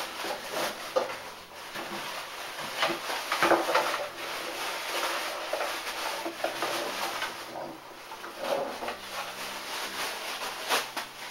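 Clear plastic bag crinkling and rustling as it is pulled off a plastic-bodied electric cupcake maker, with the odd knock of the appliance being handled.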